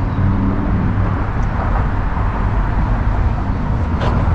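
Steady low rumble of road traffic on the bridge overhead, with a faint hum that fades about a second in.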